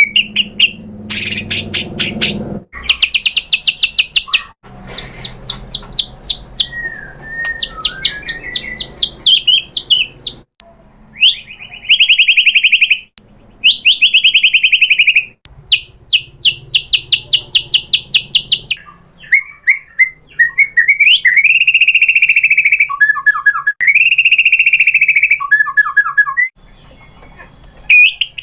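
White-rumped shama (murai batu) singing loudly in a cage: fast rattling trills of rapidly repeated notes, with whistled upward glides and slurred phrases, broken by short pauses.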